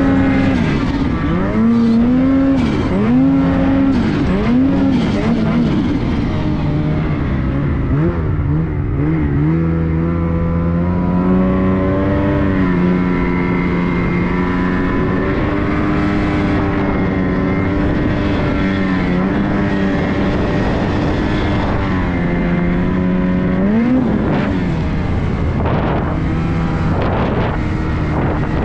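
Ski-Doo Summit X 165 Turbo snowmobile's turbocharged 850 two-stroke engine revving up and down in quick swells for the first several seconds. It then runs at a steadier pitch and climbs in revs again a few seconds before the end.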